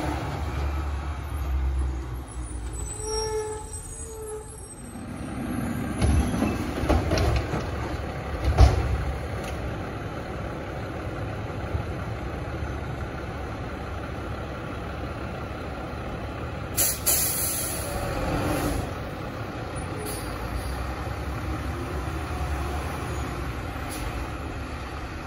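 Garbage truck diesel engines running as the trucks move along the street, with a sharp thump about nine seconds in and a short air-brake hiss about seventeen seconds in.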